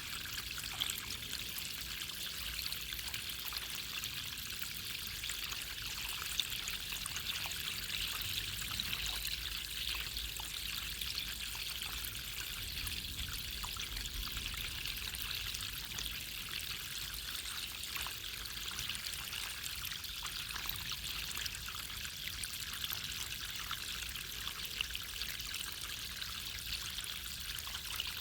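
Running water pouring and trickling steadily, a bright even splashing hiss with a few sharper ticks of drops now and then.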